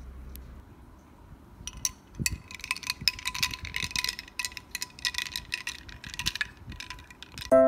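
Ice cubes clinking against a double-walled glass of iced coffee as it is stirred: a quick, irregular run of light clinks lasting several seconds. A music outro starts right at the end.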